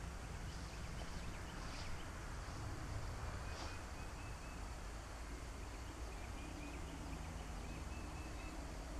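Quiet pond-side ambience: a steady low background noise with faint, short, high-pitched calls repeating in the distance.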